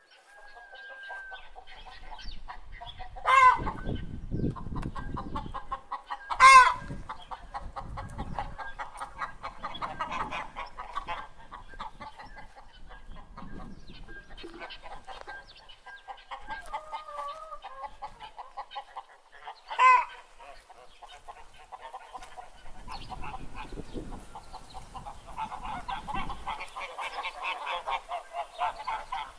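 A flock of chickens clucking continuously, busier near the end, with three short, loud honks from domestic geese standing out about three, six and twenty seconds in.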